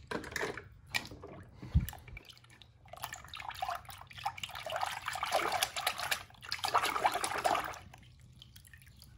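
Water sloshing and splashing in a plastic tub as a hand moves through it and lifts out a small die-cast toy car, with a single dull thump a little under two seconds in.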